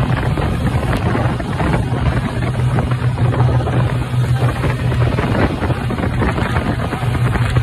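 Speedboat under way at speed: a steady low engine drone under the rush of water and wind buffeting the microphone.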